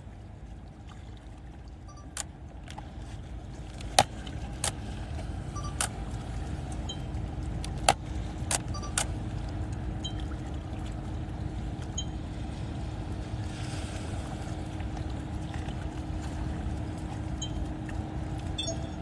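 A distant motorboat engine: a low, steady drone that grows slowly louder as the boat approaches. A few sharp clicks come in the first half.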